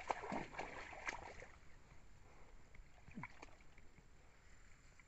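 Shallow muddy water sloshing and plopping faintly as a person wades and works in it, with scattered small clicks and splashes that are busiest in the first second and a half.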